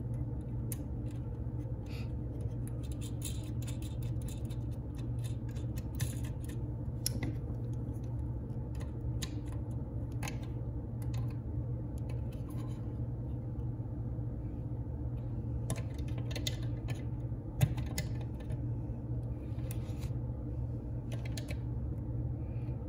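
Scattered small metal clicks and taps as terminal tabs on the back of a C3 Corvette instrument cluster's metal housing are handled by hand and with needle-nose pliers, with one sharper click a little past halfway. A steady low hum runs underneath.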